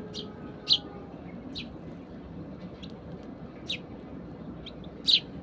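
Sparrows chirping: short, sharp single chirps every half second to a second, with a louder one about three quarters of a second in and another near the end, over steady background noise.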